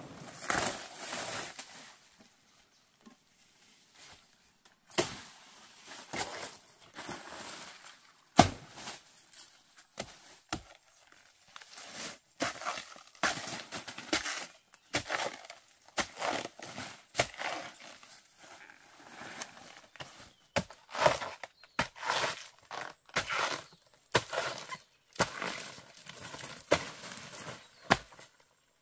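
A blade chopping and tearing through plant stalks: an irregular series of sharp strokes, the loudest about eight seconds in, with rasping, tearing sounds between them.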